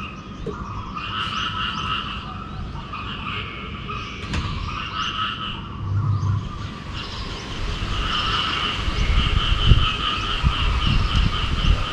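A chorus of frogs calling in rapid pulsed trills, in bouts at first and then almost without a break, over a low rumble that swells now and then.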